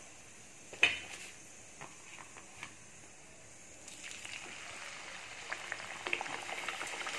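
A sharp clack about a second in. From about four seconds, a puri slid into hot oil begins deep-frying, a hiss with crackling that grows steadily louder.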